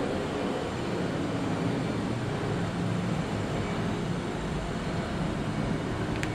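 A steady low mechanical hum with a hiss over it, unchanging throughout, with a faint click near the end.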